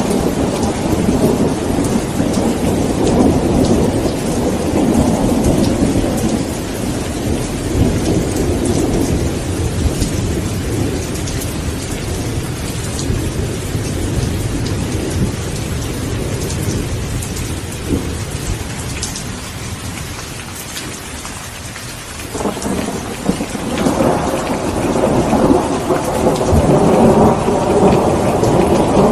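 Steady heavy rain with rolling thunder: a long rumble dies away over the first several seconds, leaving the rain alone, and a new roll of thunder builds up about two-thirds of the way through.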